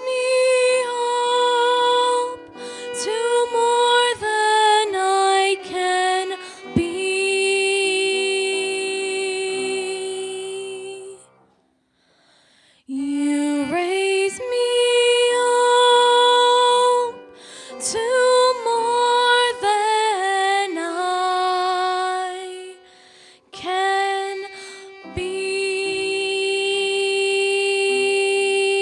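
Women singing a slow worship song, in phrases with long held notes and a short break about halfway through.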